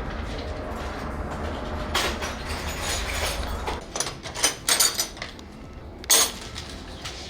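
Clatter of hard objects being handled: a quick run of sharp clinks and knocks about four to five seconds in, and one louder sharp clink about six seconds in.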